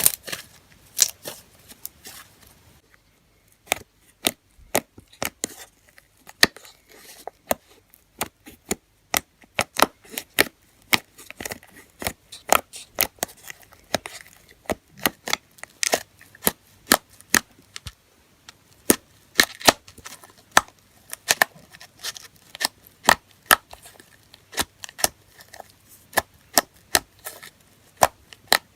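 Homemade slime being squeezed, stretched and poked by hand, giving off a long irregular series of sharp pops and clicks, roughly two or three a second, as trapped air pockets burst.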